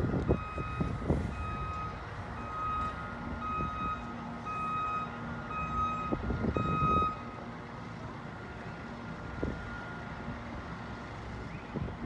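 Electronic warning beeper sounding a steady rhythm of short, high, single-pitched beeps that grow louder and stop about seven seconds in.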